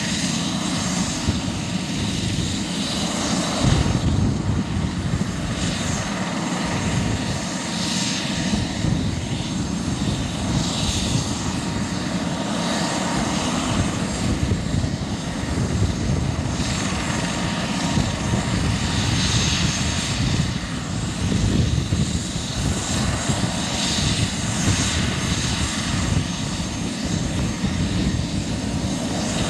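Airbus H145 helicopter running on the ground, its twin turboshaft engines giving a steady turbine whine under the swish of the turning main rotor.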